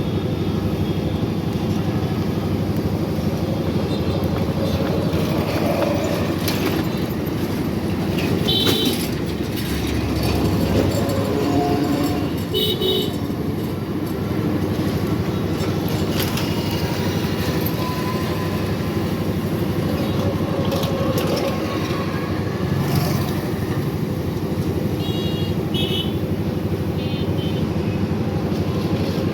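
Street traffic: a steady rumble of engines, with short high horn toots now and then, about nine and thirteen seconds in and several more near the end.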